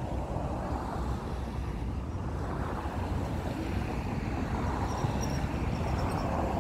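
Wind rumbling steadily on a phone's microphone outdoors.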